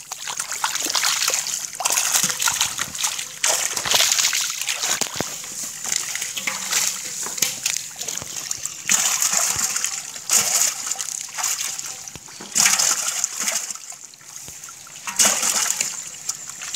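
Carp thrashing and splashing in ankle-deep muddy water, in sudden irregular bursts every second or two.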